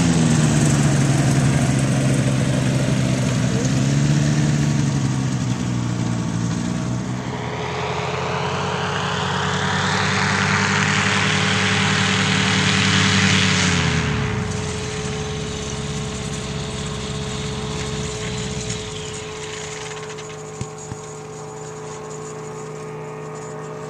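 Powered parachute's engine and propeller running as the craft comes in to land. A rushing whoosh swells over the middle of the clip, then the engine pitch drops sharply about two-thirds of the way through as the throttle is pulled back. It runs on softly and steadily near the end.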